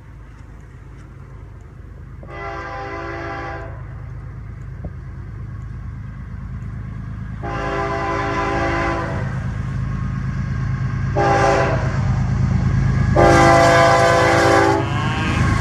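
Multi-chime horn of a Florida East Coast GE ES44C4 diesel locomotive sounding the grade-crossing signal as it approaches: two long blasts, a short one, then a final long one. Beneath it the locomotive's low engine and wheel rumble grows steadily louder.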